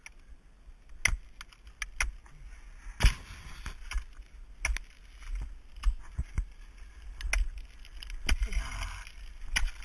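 Ice axe picks and crampon front points striking a frozen ice flow: a series of sharp, irregular strikes, the loudest about three seconds in.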